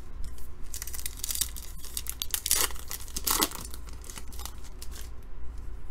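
Crinkly wrapper of a baseball card pack being torn open and crumpled by hand, in several short crackling rips, the loudest about a second, two and a half and three and a half seconds in.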